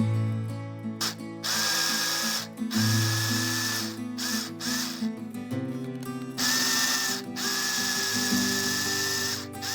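Background music with a small power tool running in several bursts of one to two seconds, a steady whine with short pauses between.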